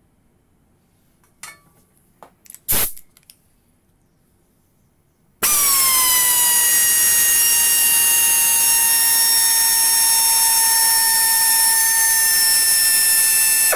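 A few clicks and knocks of the tool being handled, then about five seconds in the pneumatic air screwdriver starts and runs unloaded at free speed: a loud, steady hiss of air with a high whine that dips slightly in pitch just after starting. It cuts off sharply at the end.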